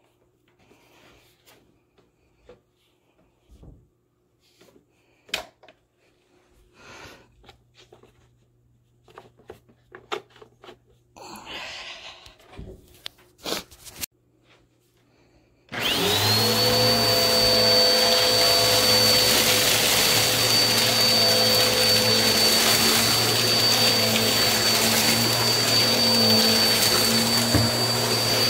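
Scattered handling clicks and rustles, then a Bissell Helix Turbo upright vacuum is switched on about 16 seconds in: the motor spins up with a rising whine and settles into a steady run with a high whine.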